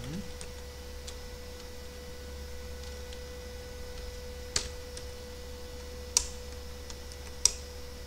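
Sparse computer keyboard keystrokes: a few faint ticks, then three sharp, loud key clicks spaced more than a second apart in the second half, over a steady electrical hum with a faint constant whine.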